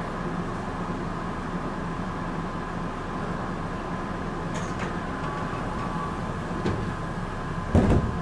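Tokyu 8500 series train standing at a platform, its onboard equipment giving a steady hum with a few held tones. A light click comes about halfway through, and near the end a short heavy thump as the sliding doors shut before departure.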